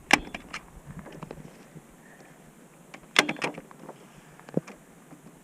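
Sharp clacks of a hand staple gun driving staples to fix a paper shooting target up. There is one right at the start, another about three seconds in followed by a couple of lighter clicks, and a single sharper click about four and a half seconds in.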